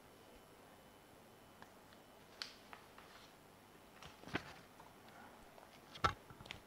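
Near silence: faint steady background hiss with a few short, soft clicks, the clearest about four and six seconds in.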